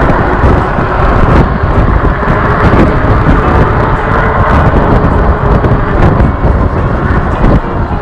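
Wind rushing and buffeting over the microphone of a camera on a moving e-bike: a loud, steady rumble that flutters in level.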